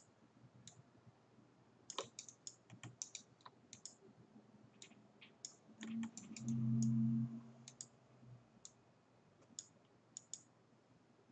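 Irregular computer mouse clicks and a few keyboard taps. A little past the middle, a brief low hum lasting about a second is the loudest sound.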